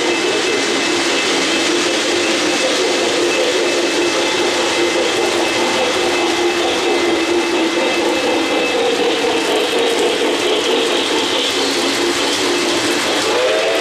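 O-gauge model trains running on three-rail track: a steady rumble of electric motors and wheels on the rails. Near the end, a multi-tone train whistle starts up.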